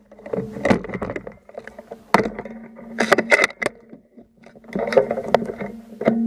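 Handling noise from a rifle with a camera mounted on it: irregular clusters of clicks, knocks and rattles as the rifle and its gear are moved, over a steady low hum. No shot is fired.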